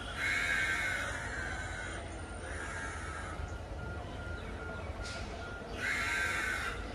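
Crows cawing three times, over the steady low rumble of the idling train.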